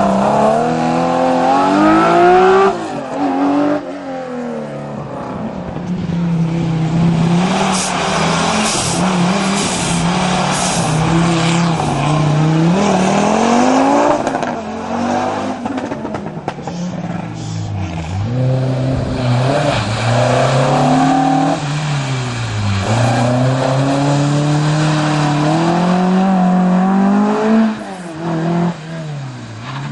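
Historic rally car driven hard on a special stage: its engine revs climb and drop again and again as it shifts and lifts off through the bends, with brief sharp bursts of noise about a third of the way in.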